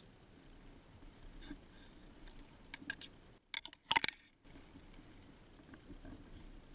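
Muffled, faint rustling of brush and footsteps through dry leaf litter in dense undergrowth, heard through a waterproof camera housing, with a short cluster of sharp clicks about four seconds in.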